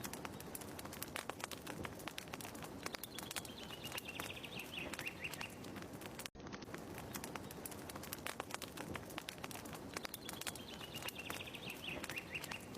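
Fire crackling in a fireplace with a bird's chirping call once in each pass, in a short loop that repeats about every seven seconds with a brief dropout.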